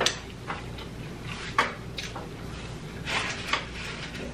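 Close-up chewing of taco, with scattered crisp crunches and clicks and a denser patch of crunching about three seconds in.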